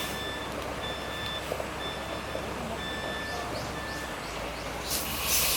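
Vehicle reversing alarm beeping repeatedly over a low engine rumble; the beeps stop about three seconds in, and a short burst of hiss comes near the end.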